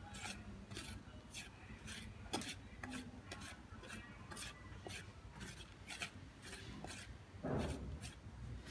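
A thin stick raking and scraping through damp, crumbly egg-and-bran bird feed on a metal tray, about two strokes a second, turning the mash so it dries faster. A brief, louder low bump about seven and a half seconds in.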